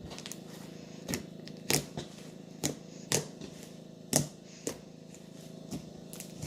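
Butter slime being kneaded and squished by hand as clay is worked in, giving irregular sharp clicks and pops, roughly one or two a second, over a faint steady hum.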